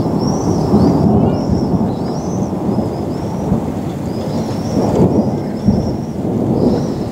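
Thunder rolling in a long, continuous rumble with rain, swelling and easing several times. A series of short, high chirps is heard above it.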